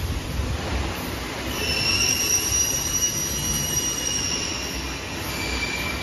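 Copper wire bunching machines and their pay-off spools running: a steady mechanical rush with a high-pitched squealing whine that comes in about a second and a half in and fades out a few seconds later.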